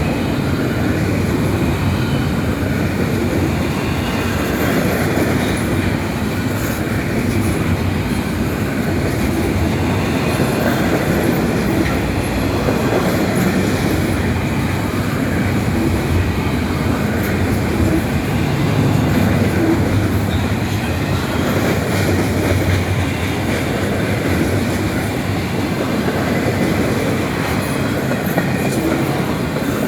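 CSX intermodal freight train rolling past at steady speed: a continuous rumble of steel wheels on rail, with some clickety-clack over the rail joints.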